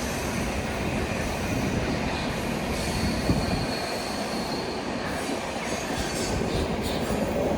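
Lucknow Tejas Express passing through a station at speed without stopping: a steady, continuous rumble of wheels on the rails. A thin high tone rides over it for a couple of seconds mid-way.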